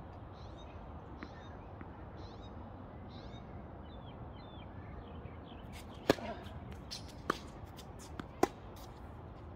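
Tennis ball struck by rackets and bouncing on a hard court: several sharp pops in the last few seconds, the loudest about six seconds in.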